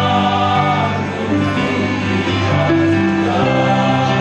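Male choir singing in harmony, holding long chords that change to new notes every second or so.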